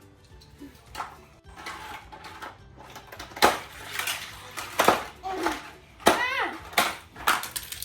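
Hard plastic toy pieces clattering and knocking in a run of irregular clicks, with a child's voice making short sounds in between.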